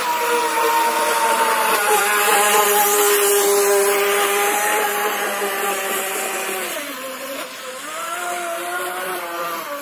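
Electric RC speedboat's brushless motor (3650 size, 3000 KV, on a 2S LiPo) whining at speed over the hiss of water spray. The pitch dips as the throttle eases about seven seconds in, then rises again.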